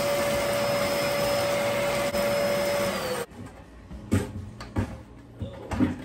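Dyson vacuum's motor running steadily with a constant whine, pulling air and dust hard through the hose and a cyclone dust separator on a bucket. About three seconds in it is switched off: the whine sags in pitch and stops. A few knocks follow.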